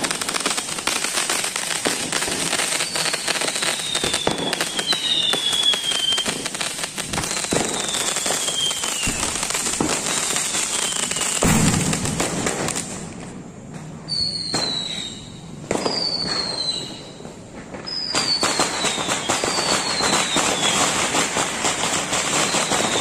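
Fireworks going off: a dense, continuous crackle with a string of short falling whistles, and one loud bang about halfway through. The crackle thins out for a few seconds after the bang, then picks up again.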